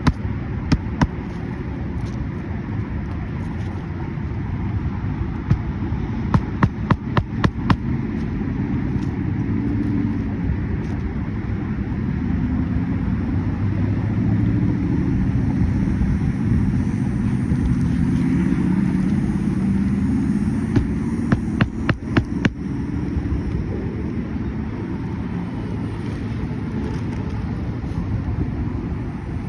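Quick runs of five or six sharp knocks, about four a second, heard near the start, about a third of the way in and again about three-quarters in, over a steady low rumble.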